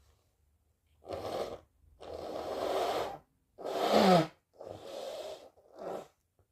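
A person with a head cold blowing their nose: five breathy nasal blasts in a row. The loudest, about four seconds in, carries a voice-like tone that falls in pitch.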